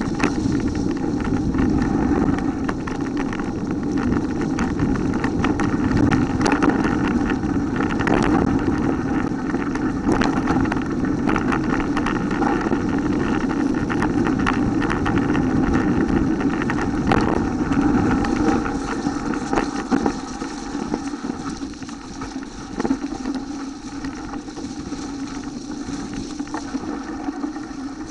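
Wind noise on the microphone of a mountain bike riding downhill on a dirt forest trail, with tyres rolling over dry leaves and many small knocks and rattles from the bike over bumps. It eases a little about two-thirds of the way through.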